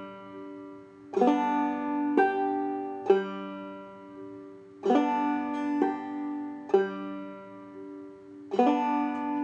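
Five-string banjo played slowly in clawhammer (frailing) style: a knock on the third string, a brush across the strings and a thumb note on the fifth string, each stroke about a second apart and ringing out. The three-stroke pattern comes three times, with a short rest between rounds while the hand resets.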